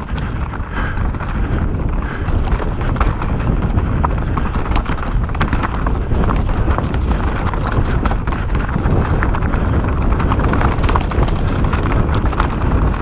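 Mountain bike rolling down a rocky, leaf-covered trail: tyres crunching over loose rock and the bike rattling in a constant clatter of small knocks, over a low rumble of wind on the microphone.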